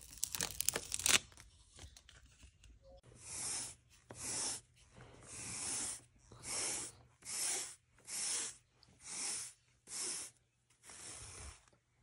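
Protective plastic film crackling as it is peeled off a printer screen in the first second, then a pet hair remover scraped across carpet in about nine even strokes, roughly one every 0.8 s, raking up cat hair.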